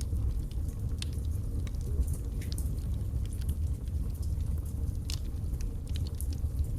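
Wood fire burning in a fireplace: a steady low rumble of flames with irregular crackles and pops from the burning logs, a few sharper ones about a second in, around two and a half seconds in, and around five seconds in.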